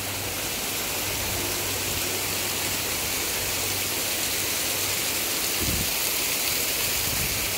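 Steady rush of hot spring water falling down the rocks into natural soaking pools, with a brief low thump about six seconds in.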